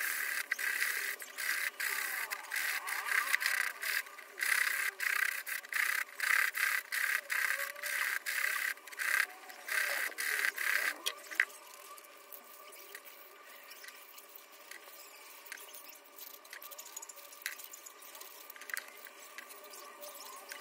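Quick, irregular scraping or rubbing strokes, each a fraction of a second long, repeated for about the first ten seconds. Then much quieter, with a few faint clicks.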